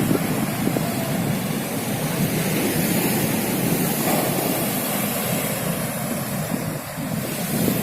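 Heavy ocean surf crashing and washing up the beach in a steady roar, with wind rumbling on the microphone.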